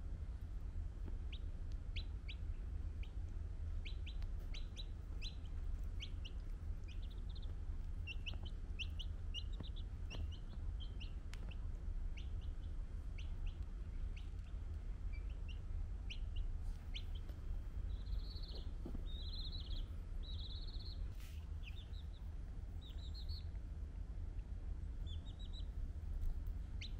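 Baby chick peeping: many short high cheeps, each falling in pitch, coming in quick runs, with some longer arched peeps in the second half. A steady low hum runs underneath.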